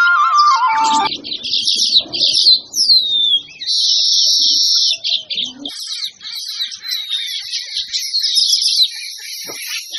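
Birds chirping and twittering in fast, high trills, with one downward-sliding call about three seconds in. A flute-like music tone cuts off about a second in.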